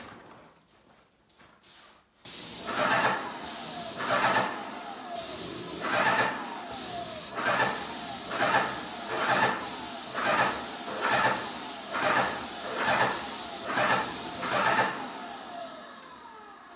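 Graco GX FF airless paint sprayer spraying in about a dozen trigger pulls, each a loud hiss of atomized paint, starting about two seconds in and stopping near the end, with a short falling tone after each release.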